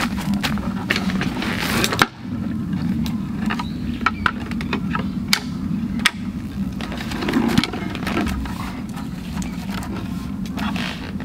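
Wooden slatted folding camp table being unfolded and set up: repeated wooden clacks and knocks as the legs are swung out and the top is laid flat.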